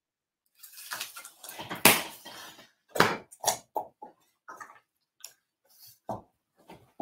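Packaging of a mailed package rustling and crinkling as it is handled and opened by hand, with several sharp taps and clicks at uneven intervals.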